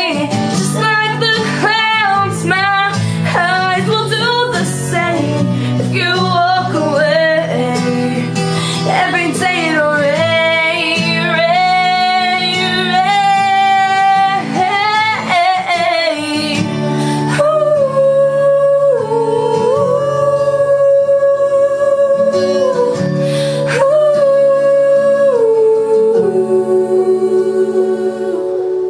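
Music: a woman singing with a wavering vibrato over guitar accompaniment, moving into longer held notes in the second half.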